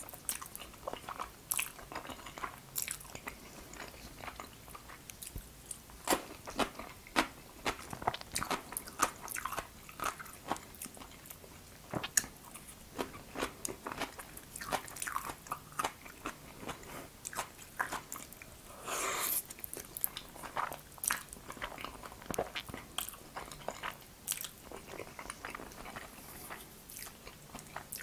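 Close-miked chewing of jajangmyeon noodles in black bean sauce: many sharp, wet mouth clicks and smacks at an irregular pace, with one longer slurp or suck a little before two-thirds of the way through.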